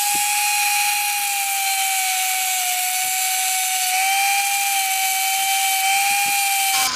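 Angle grinder running at full speed while grinding the engine casing flat around the oil drain plug hole: a steady high whine with a hiss, wavering slightly in pitch. It is switched off at the very end and its whine falls as it winds down.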